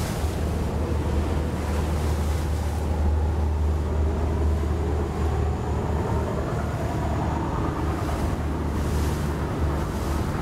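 Low, steady engine drone of a boat on the river, with water wash and wind noise on the microphone that swells briefly about nine seconds in.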